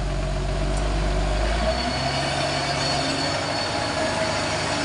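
Heavy Fuso tronton truck's diesel engine running hard under load as the truck crawls through mud, with a steady high whine over the engine noise. The deep low rumble drops away a little under two seconds in.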